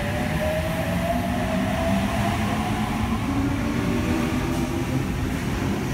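Electric intercity train (a Sydney H set) at the platform, its traction motors whining over a steady rumble; the whine slowly rises in pitch for the first couple of seconds, as when the train accelerates, then fades.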